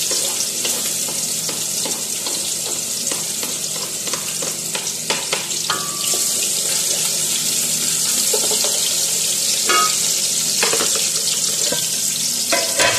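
Onion and garlic frying in a hot pot, a steady loud sizzle, with a utensil scraping and knocking against the pot now and then as they are stirred.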